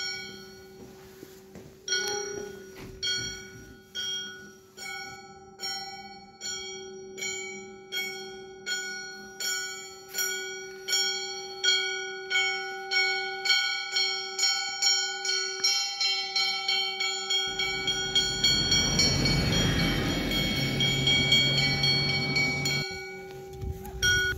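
A metal bell struck over and over, each strike ringing on and fading. The strikes speed up from about one a second to two or three a second. A rushing noise joins in for several seconds toward the end.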